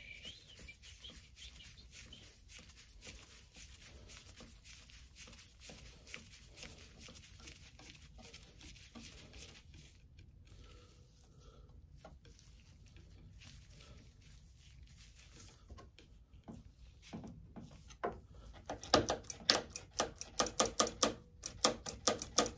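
Faint ticking and scraping of a screwdriver tightening the pivot screw of a 2008 Kawasaki Ninja ZX6R's clutch lever. Near the end comes a quick run of loud, sharp clicks as the freshly fitted clutch lever is worked against its perch.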